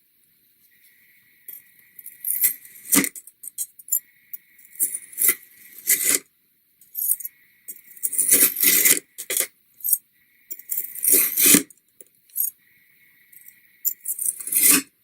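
A Shun kitchen knife slicing through kinetic sand, with about five crunchy, crackling cuts a couple of seconds apart. A faint steady high tone sits in the gaps between cuts.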